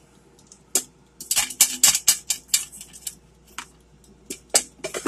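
Metal utensil clinking and tapping against an air fryer basket while the sausage is handled. There is a quick run of clicks in the first couple of seconds, then a few scattered taps.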